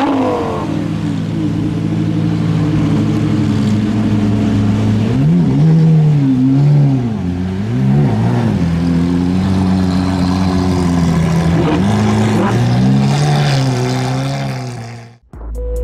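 Lamborghini Aventador's V12 engine pulling away at low speed, at first running at a steady low pitch, then blipped again and again so the revs rise and fall in quick swells, in two bursts of throttle. The sound cuts off abruptly near the end.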